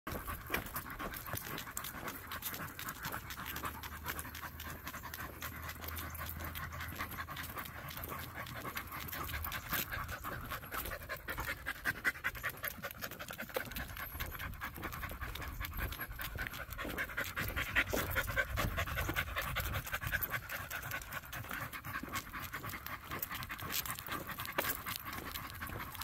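Dogs panting steadily and rhythmically while walking on leash.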